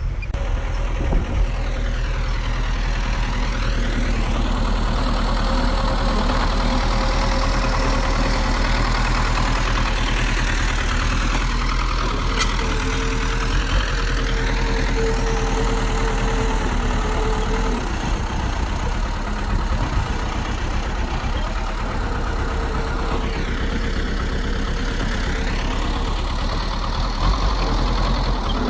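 Bulldozer's diesel engine running steadily and loud, its note dipping and climbing back up three times.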